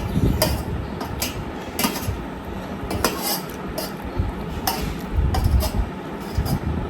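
Metal spoon clinking against a plate during a meal, in several separate sharp clicks, over a low rumble.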